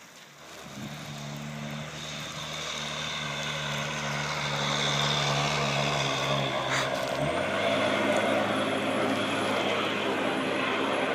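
Snow plow truck's engine working hard as the truck struggles up a snowy hill, getting louder over the first few seconds. Its pitch drops about seven seconds in.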